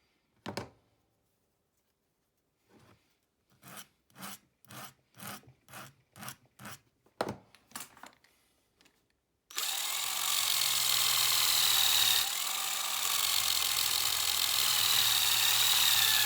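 Handmade metal trout spoon being worked: about ten hand rubbing strokes, roughly two a second, then an electric power tool starts about halfway through and runs steadily with a whine, polishing the spoon, until it stops at the very end.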